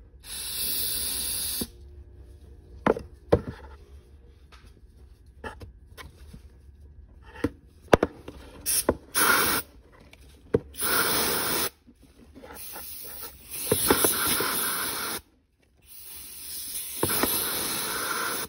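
Aerosol can of de-icer spraying in a series of hissing bursts, a couple brief and several lasting one to three seconds, to chill the thermostat spring of the airbox's cold-start flap. Sharp clicks and taps fall between the bursts.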